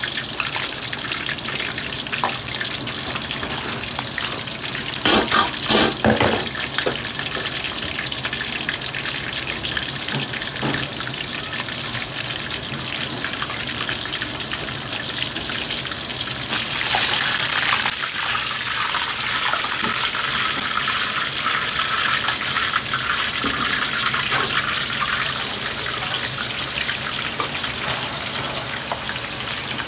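Food deep-frying in hot oil in an iron wok: a steady sizzling, bubbling hiss, with a few louder knocks about five and six seconds in and a surge of sizzling around seventeen seconds.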